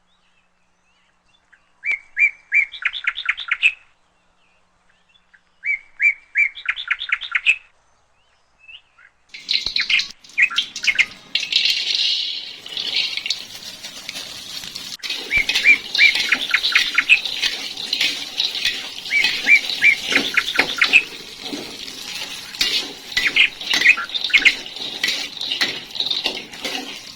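Small bird chirping: two short runs of rapid repeated chirps, then from about ten seconds in more chirping over a steady hiss.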